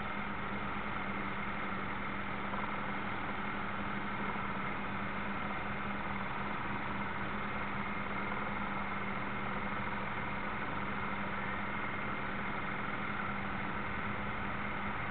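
Radio-controlled model destroyer's drive motor running steadily, heard from on board. A constant low hum with a hiss above it, unchanging throughout.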